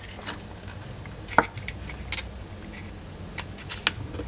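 Light clicks and rustling from a plastic dome-light panel and its wire being handled as the wire is fed through a drilled hole, the sharpest click about a second and a half in, over a steady high-pitched whine.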